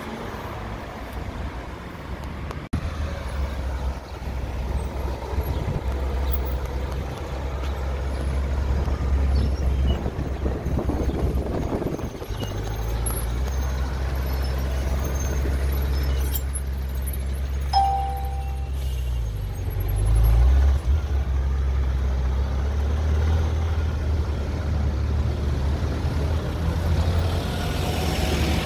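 Low, steady rumble of a sports car's engine at low revs as it idles and creeps along in city traffic, swelling briefly around twenty seconds in. A short beep sounds about eighteen seconds in.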